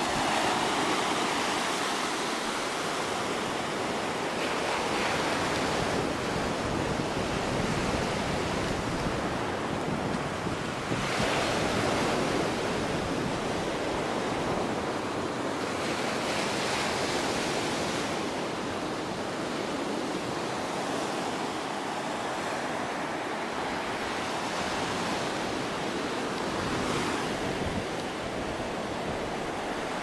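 Sea surf washing up a sandy beach: a continuous rush that swells louder with each incoming wave.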